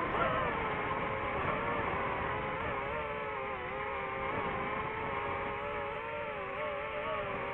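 DJI FPV drone's motors and propellers whining in flight, the pitch wavering up and down, with a short drop in pitch near the start.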